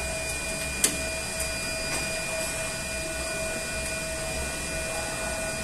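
Steady whir and hum of a running Schneider Electric Easy 3S UPS cabinet, with thin steady whining tones over a low rumble. A single sharp click comes about a second in.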